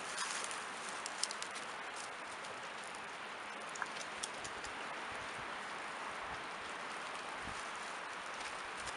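Steady rushing of a small brook, with a few sharp dry crackles of birch bark and twigs being handled as kindling.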